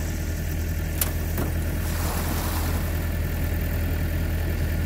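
Steady low hum of an idling engine. An aluminum jon boat is tipped onto its side: a sharp knock about a second in and a brief scraping rustle around two seconds in.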